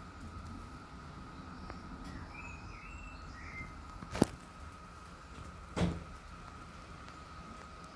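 Two sharp knocks about a second and a half apart, the first a hard click and the second duller, over a faint steady high hum.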